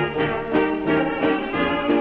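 Instrumental interlude of an old period song recording: the accompanying orchestra plays on without vocals, in a steady rhythm of changing held notes.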